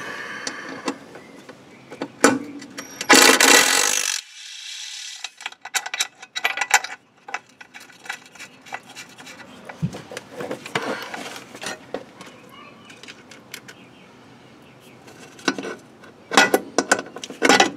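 Metal clicks, clinks and scrapes of bolts, a hand tool and an aluminum A-arm guard as the guard's mounting bolts are loosened and the guard is handled, with a louder scraping burst about three seconds in.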